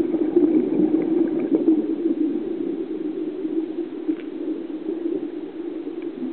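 Steady muffled underwater hum and rush picked up by a submerged camera, with a few faint clicks.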